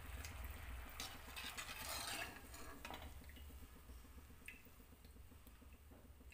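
Pakoras frying in hot oil in a kadai with a faint sizzle. A perforated steel skimmer clinks against the pan a few times in the first three seconds as fried pakoras are lifted out and drained of oil.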